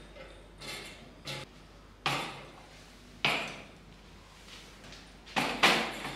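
Decorations set down one after another on a slatted wooden tabletop: a lantern, metal plant pots and a wooden tealight holder. Around six separate knocks and clunks, the loudest near the end.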